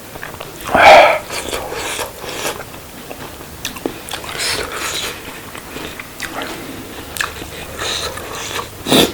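Close-miked eating sounds: biting and chewing, with many short scattered clicks and crackles, a loud short burst about a second in, and a sharp click near the end.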